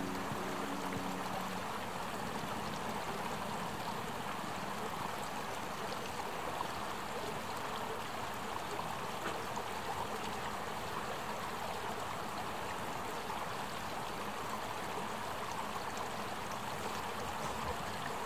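Steady rush of running water, with the tail of background music fading out in the first second or so.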